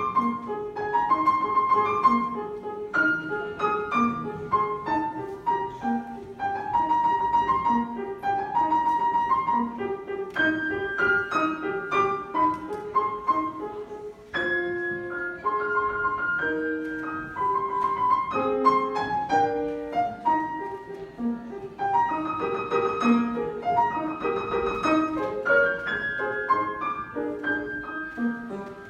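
Solo piano playing a classical children's-recital piece, with a regular bass-and-chord accompaniment under a melody; the piece closes right at the end.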